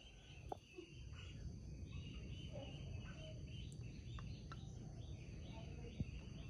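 Background ambience of insects chirping, with steady high tones and a steady low hum underneath, and a few faint clicks.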